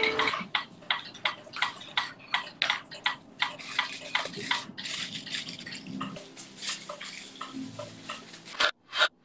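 A quick, irregular series of short scratching, rustling clicks, about three or four a second.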